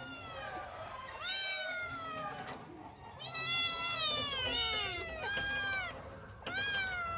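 Kittens meowing one after another in high, falling cries, some overlapping, loudest a little past the middle; the kittens are crying for their mother.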